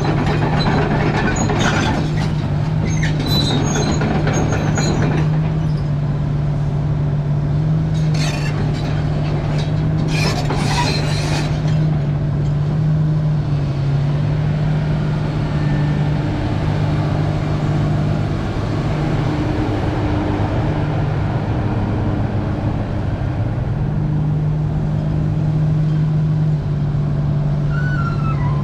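The diesel engine of a 2008 Komatsu PC300-7 hydraulic excavator running steadily at a constant speed. Brief clinks and squeaks come through over it during roughly the first twelve seconds.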